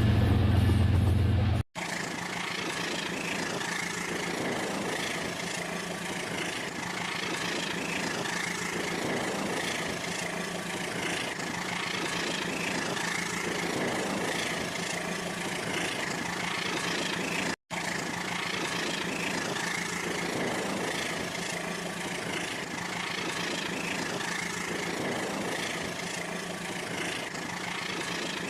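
Toy train's small electric motor running steadily, with its wheels rolling on plastic track: an even hum and whine with soft recurring pulses every couple of seconds. A louder low hum fills the first second and a half, then cuts off abruptly.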